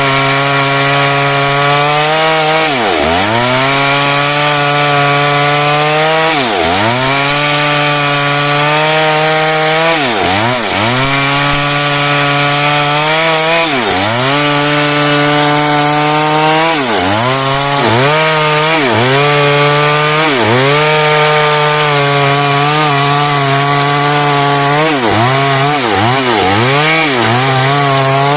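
Stihl chainsaw cutting heartwood timber into frame stock, running at high revs. Every few seconds its revs dip sharply and come straight back up, more often near the end.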